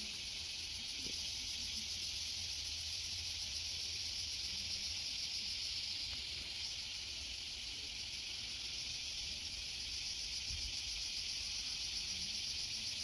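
A steady, high-pitched insect chorus, an unbroken shrill hiss that does not change for the whole stretch.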